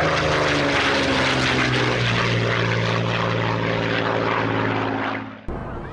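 Propeller aircraft engine running with a steady drone, some of its pitch sinking slightly over the first couple of seconds. It fades and then cuts off about five and a half seconds in.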